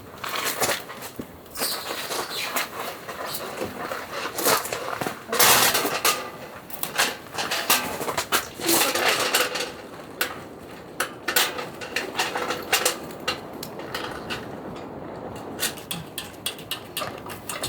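Irregular clicks and knocks with rustling, as of things being handled, including a louder scraping rush about five seconds in.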